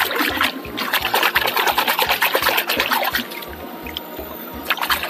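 A hand splashing and swishing a small plastic toy in shallow river water, busy for about the first three seconds, then quieter, with a short splash near the end. Background music with a steady low beat underneath.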